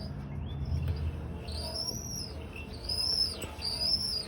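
Mechanically seized 1/5 hp condenser fan motor being pushed round by hand: its shaft gives a high grinding squeal that rises and falls, three times at about one-second intervals from about a second and a half in. The squeal is the sign of the seized, rusted bearing.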